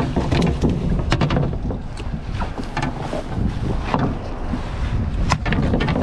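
Steady low rumble of wind on the microphone and the boat, with scattered clicks and knocks, about one a second, from handling a landed sea bass in a wire landing net on the deck.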